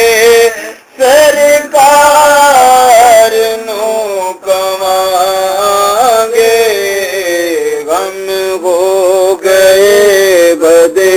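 Outro music: a solo voice singing a slow, ornamented chant-like melody, held notes gliding up and down, with short breaks between phrases.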